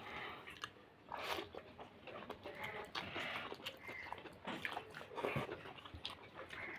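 A person chewing and biting food with irregular wet mouth clicks and smacks while eating fish curry with rice.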